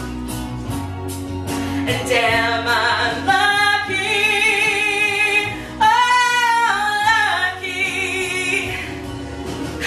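A woman singing solo over instrumental accompaniment. She holds long notes with vibrato and reaches her highest, loudest note about six seconds in.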